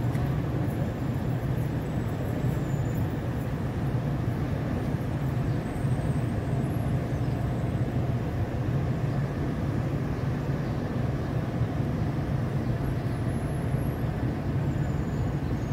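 Steady low hum of air conditioning and wall-mounted fans.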